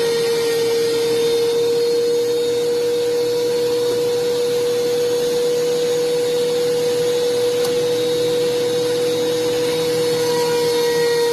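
DeWalt thickness planer running steadily, a loud, even machine whine with a strong high hum that does not change.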